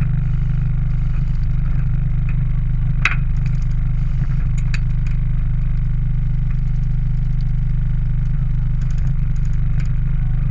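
Pickup truck on the move, its engine and driving noise a steady loud low rumble heard from the open truck bed, with a few sharp clicks and knocks over it.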